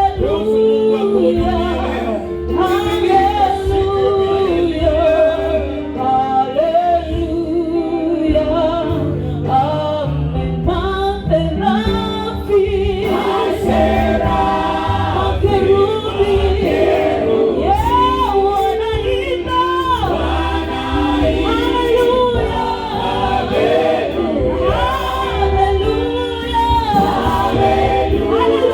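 Gospel music: a choir of voices singing a melody over a continuous bass accompaniment.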